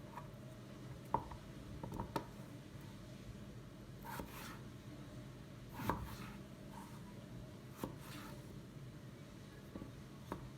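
Occasional light knocks and short scraping, brushing sounds of objects being handled, irregularly spaced, over a quiet room background.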